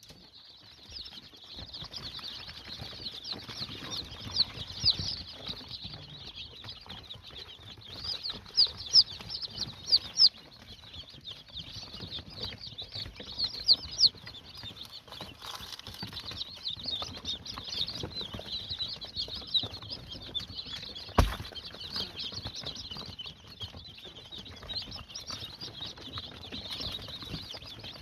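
A brood of mixed Australorp and Leghorn chicks peeping together, a dense continuous chorus of high cheeps with louder bursts now and then. A single sharp knock about three quarters of the way through.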